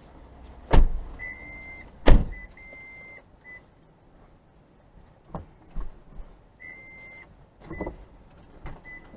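Two heavy car-door thumps about a second apart, with the car's electronic warning chime sounding in stretches of steady high beeping. A few lighter knocks follow later.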